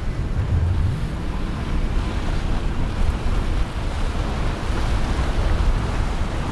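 Wind buffeting the microphone over rushing water and boat wake, with a low steady drone of a boat engine underneath.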